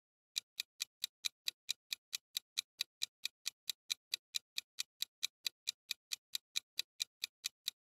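Countdown-timer sound effect: a clock ticking fast and evenly, about five sharp ticks a second, starting about half a second in, timing the seconds left to answer.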